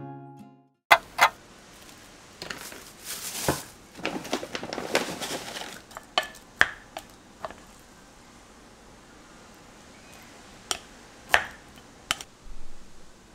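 A plastic rice paddle scraping and knocking against a rice cooker's metal inner pot while fluffing cooked rice. There is a run of scraping and knocks in the first half, then a few separate sharp taps.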